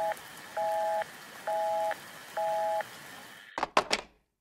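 Telephone busy-signal tone, raised in pitch by the speed-up: two pitches beeping together, on and off about once a second, four times. A few sharp clicks come near the end, then it cuts off to silence.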